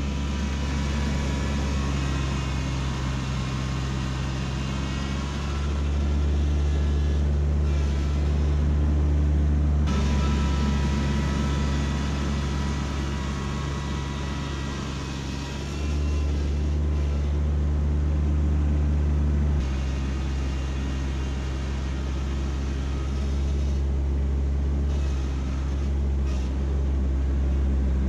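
Kubota B2601 compact tractor's three-cylinder diesel engine running steadily while the tractor drives through snow, its tone shifting abruptly in pitch and level a few times.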